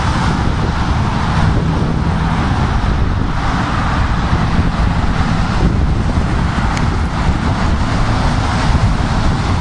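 Steady outdoor rumble of wind buffeting the camcorder's microphone, mixed with the hum of road traffic.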